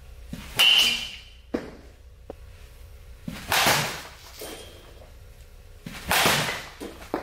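Baseball bat hitting balls off a batting tee: three sharp hits about two and a half seconds apart, each fading quickly, the first with a brief high ring.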